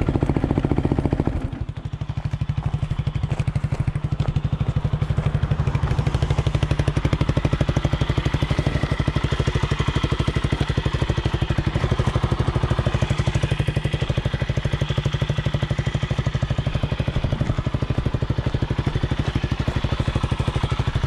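Quad bike (ATV) engine idling steadily at close range, a fast, even pulse with a brief dip about a second and a half in.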